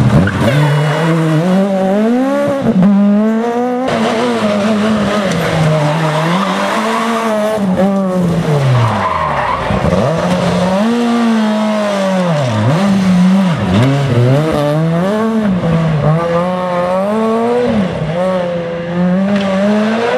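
Rally car engines revved hard, their pitch climbing and dropping again and again through gear changes and lifts off the throttle, with tyres skidding. The sound jumps between several cars at edits.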